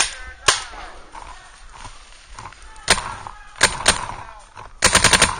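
Paintball markers firing: a few single shots, then a quick burst of about six shots near the end.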